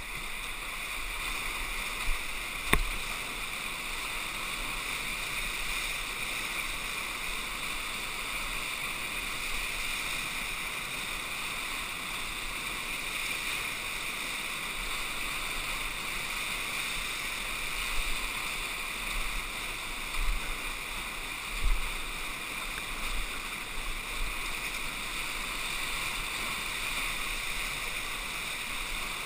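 Whitewater rapids rushing, heard through a GoPro camera as a steady hiss with little bass. A sharp knock comes about three seconds in, and a few low thumps come about two-thirds of the way through.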